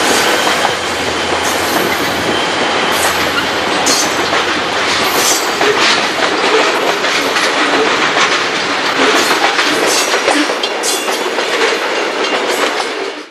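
Freight train of coal cars rolling past close by: a loud, steady rumble of steel wheels on rail with repeated clickety-clack over the rail joints. A low diesel-locomotive drone fades out in the first second, and the sound cuts off suddenly at the end.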